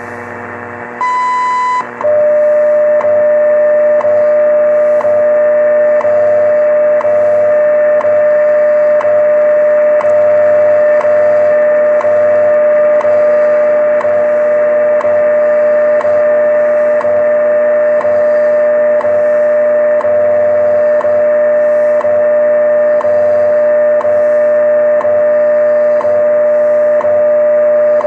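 WWV shortwave time signal on 10 MHz from a Grundig Satellit 750's speaker. About a second in comes a short high beep, the tone that marks the exact minute, 04:03 UTC. Then a steady tone sounds under a tick every second, over light static.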